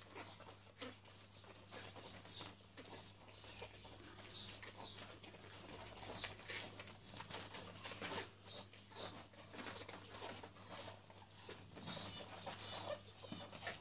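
Young Shih Tzu puppies nursing: faint wet suckling and smacking clicks, with brief high squeaks every second or two.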